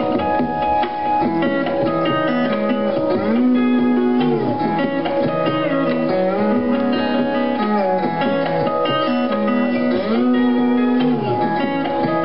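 Guitar laid flat and played lap-style, live: held chords under slide notes that glide down and back up every couple of seconds.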